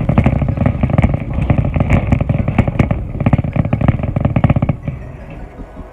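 Shopping cart rolling and rattling over a store floor: a loud, rapid clatter that dies down about five seconds in.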